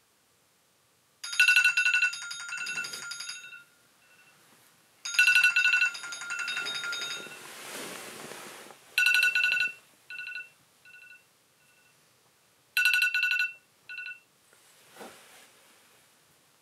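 Smartphone alarm ringing: a chiming ringtone melody repeats in several short phrases, with a soft rustle between two of them. It stops about two-thirds of the way through.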